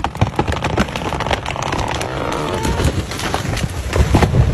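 Tree being felled: wood cracking and snapping in quick, irregular cracks, with a run of heavy low thuds near the end as the timber comes down.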